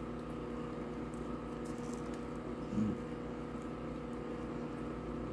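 Faint mouth sounds of chewing a chicken McNugget, over a steady low hum, with a brief hummed "mm" near three seconds in.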